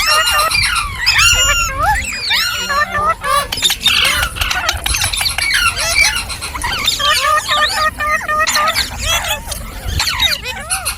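Several green parrots chattering and squawking together: many short, overlapping calls that bend up and down in pitch, without a break.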